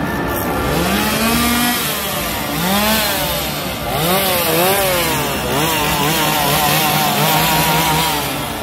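Two-stroke chainsaw revved again and again, its pitch swooping up and down in quick waves, then held high for a couple of seconds before dropping off near the end.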